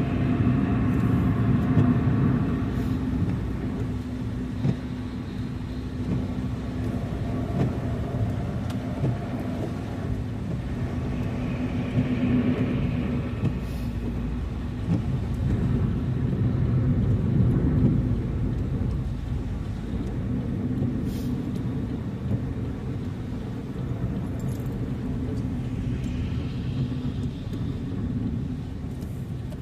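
Car being driven on a road: a steady low rumble of engine and tyres, with swells of tyre hiss a few times and a few faint ticks.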